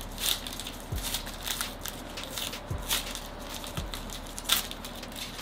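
Foil trading-card pack crinkling and crackling in irregular bursts as gloved hands tear and peel it open.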